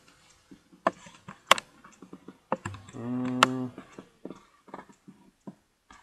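Irregular clicks of a computer mouse and keyboard, some sharp and loud, others faint. About three seconds in comes a brief low hum from a voice.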